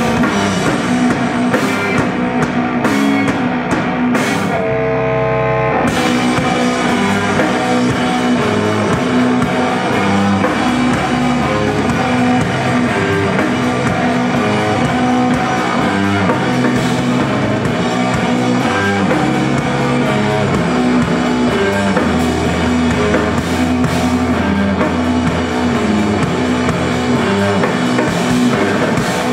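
A live instrumental rock band playing loud and dense, with saxophone, electric guitar and drum kit. About five seconds in, one held note stands out briefly.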